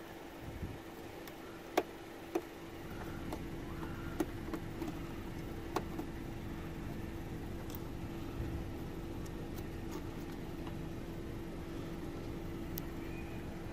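Sharp plastic clicks from a wiring connector and its rubber boot being worked loose in a car's door jamb, a handful of them in the first six seconds, the loudest about two seconds in. A steady hum runs underneath.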